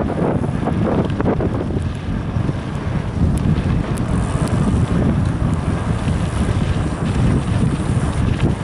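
Wind buffeting the microphone of a camera on a mountain bike ridden fast over a bumpy grass-and-dirt track. The ride makes a heavy, steady rumble, with scattered knocks and rattles from the bike over the rough ground, most of them in the first second or so.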